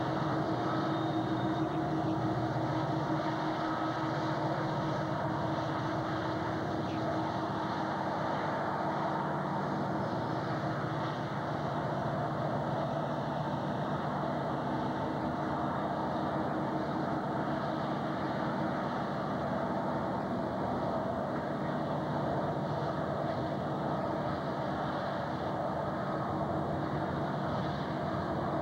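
Several diesel-electric locomotives pulling a loaded coal train run past close by, a steady engine drone with a few constant low tones over a noisy haze.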